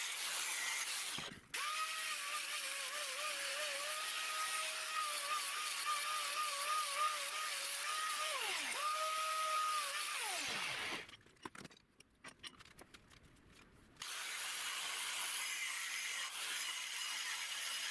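Angle grinder with an abrasive disc grinding and cutting steel: a steady motor whine with hissing grind noise, wavering as the disc bites. A little after ten seconds the whine falls away as the grinder spins down, then a few seconds of near quiet with small knocks. About fourteen seconds in, the grinding starts again.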